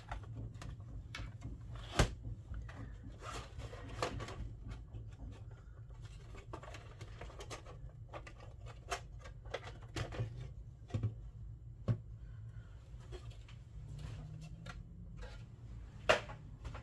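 Scattered clicks and light knocks of PlayStation 3 parts and small tools being handled and set down on a workbench, the loudest knock about two seconds in and another near the end, over a steady low hum.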